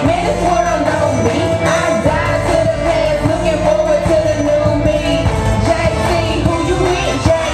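Live gospel hip-hop performance: a backing beat playing through PA speakers, with a woman singing into a microphone over it.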